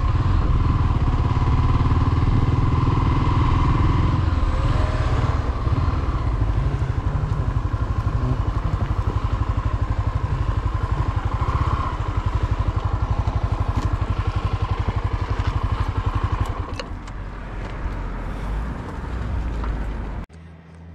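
Small-displacement motorcycle engine running while riding, a steady fast pulsing. It drops in level about three-quarters of the way in and cuts off abruptly shortly before the end.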